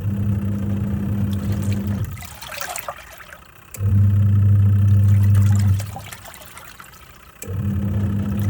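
Twin-tub washing machine on its wash cycle: the pulsator motor hums in runs of about two seconds with short pauses between, three runs in all as it reverses direction, and water sloshes in the tub during the pauses.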